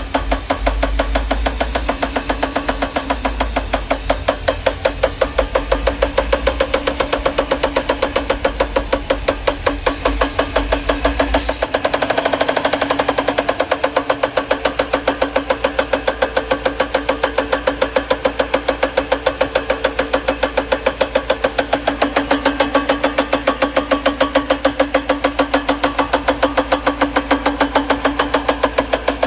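Mercedes M119 5.0-litre V8 idling with a fast, even knocking and tapping from the top of the engine. The knock comes from the top left-hand plastic timing chain guide rail in the cylinder head, which has broken off at the bottom and lets the chain slap.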